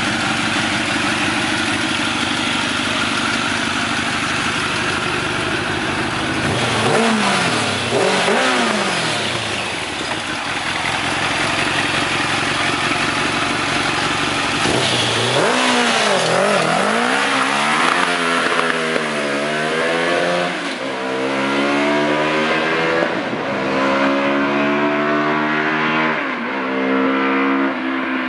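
Kawasaki Ninja ZX-10R inline-four motorcycle engine, swapped into a Daihatsu Hijet kei truck, idling steadily. About seven seconds in it is blipped twice, then from about halfway it is revved hard again and again. Near the end comes a run of rising revs.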